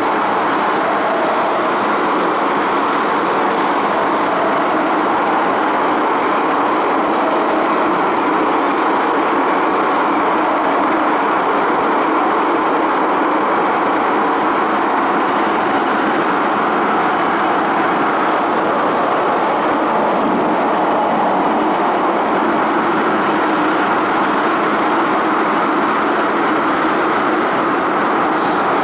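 MTR M-Train electric metro train running at speed through a tunnel, heard from inside the car: a steady, loud roar of wheels on rail.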